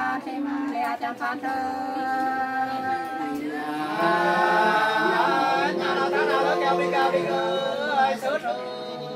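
Unaccompanied Nùng sli folk singing: several voices sing together in long held notes with sliding ornaments between pitches, the sound growing fuller about four seconds in.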